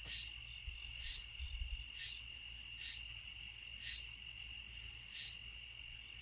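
Insects chirping: a steady high-pitched drone with short high trills every second or two.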